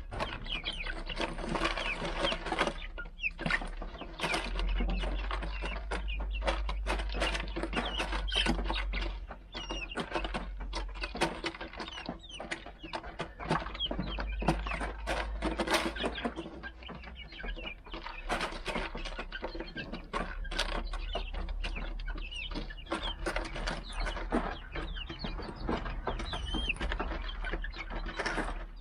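Young Rhode Island Red chickens pecking at a plastic bottle feeder and the dirt, a dense run of quick taps and clicks, with soft cheeping calls mixed in.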